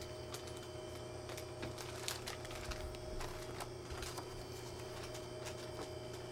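Quiet shop room tone: a steady electrical hum with a few faint steady tones, and scattered light clicks and rustles.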